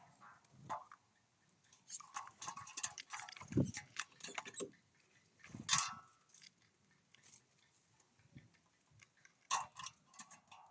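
Small wild birds at a feeder pecking at and cracking seeds: an irregular run of sharp taps and crunches in short clusters with pauses between, busiest in the first half.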